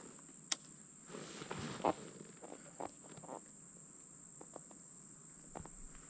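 A steady high-pitched insect drone, with small clicks and rustling from a shooter settling in behind a rifle.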